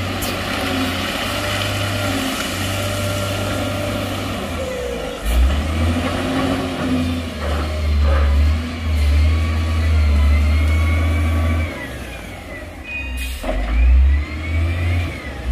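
Heavy diesel engine of construction machinery running and revving up and down, its deep drone loudest through the middle. A short sharp noise comes about thirteen seconds in.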